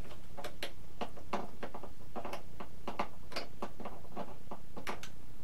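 Light, irregular clicks and ticks of a small driver and fingers working on the electric motor's mounting screws of a foam RC airplane, checking that they are tight.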